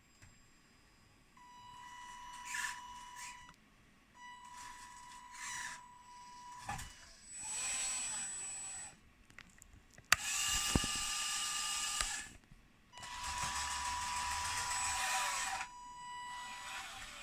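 Small electric motors of a radio-controlled model excavator whining in runs of a few seconds, some with a steady high whine, the loudest ones noisier and grinding. There is a sharp click about ten seconds in.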